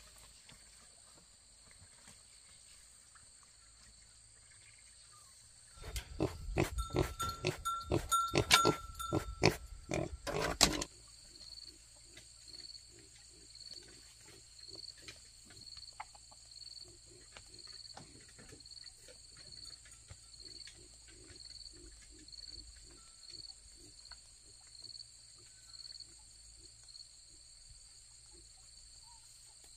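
Loud animal calls, repeated for about five seconds starting about six seconds in. After that, a faint call repeats about once a second.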